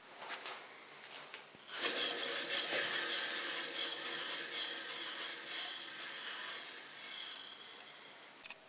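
Homemade disc sander's electric lawn-mower motor switched on about two seconds in, spinning the sanding disc and a propeller cooling fan on its rear shaft with a loud rushing hiss. The sound fades gradually as the motor winds down near the end.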